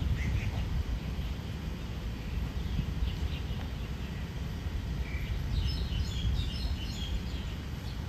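Small birds chirping in short high notes over a steady low rumble, with a quick run of chirps about six seconds in.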